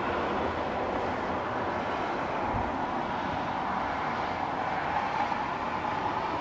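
Steady wash of distant road traffic: an even, continuous rumble with no single vehicle standing out.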